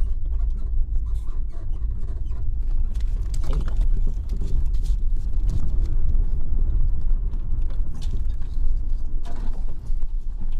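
Steady low rumble of a small motorhome's engine and tyres, heard from inside the cab as it drives slowly, with scattered light clicks and rattles over it.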